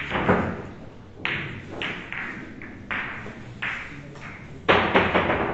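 A series of sharp knocks with short echoes, spread irregularly, ending in a quick louder cluster of them near the end.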